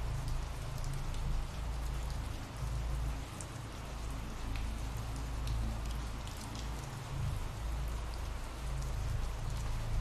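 Ambient rain sound effect: steady rainfall with faint scattered drop ticks over a low rumble.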